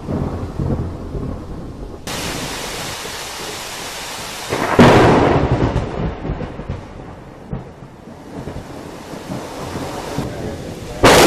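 Heavy rain pouring steadily. About five seconds in, a close thunderclap breaks out suddenly, loud and sharp, then rumbles away over a couple of seconds. Another sudden loud burst comes at the very end.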